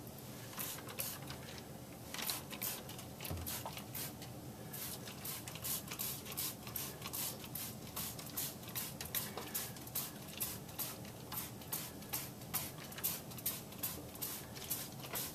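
Hand-held spritzer spray bottle squeezed over and over, each squeeze a short hissing squirt, misting diluted acrylic paint onto plaster rock castings. The squirts come about two to three a second, quicker from about five seconds in.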